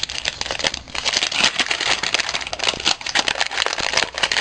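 Packaging crinkling and rustling as a wrapped item is torn open and unwrapped by hand, a dense run of fine crackles.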